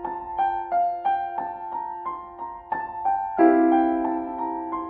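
Background piano music: single notes struck about three times a second, each fading, over a held lower note, with a louder new chord about three and a half seconds in.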